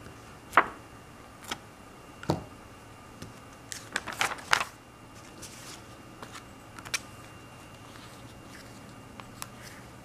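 Paper and card stock being handled on a tabletop over a magazine, with a plastic glue stick set down: a few separate sharp taps and clicks, then a quick cluster of paper crackles and taps about four seconds in.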